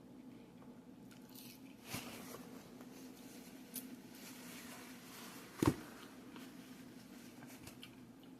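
Close-miked chewing of a crunchy nacho-flavoured hard taco shell: soft wet chewing with a few crisp crunches or mouth clicks, the sharpest a little over two thirds in.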